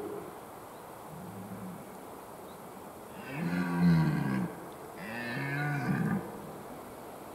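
Red deer stag roaring in the rut: a short, fainter call about a second in, then two long, louder roars, each rising and falling in pitch, the first of the two the loudest.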